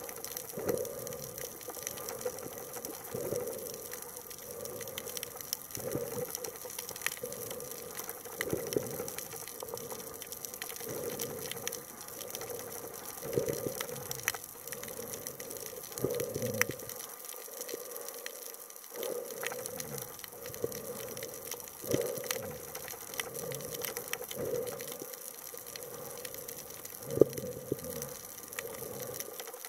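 Underwater water noise from a swimmer's camera: a steady rush with a swell of water movement about every two and a half seconds. Many faint clicks are scattered through it.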